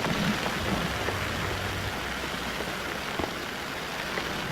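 Steady hiss of blizzard wind on the camcorder's microphone, with a low rumble in the first couple of seconds.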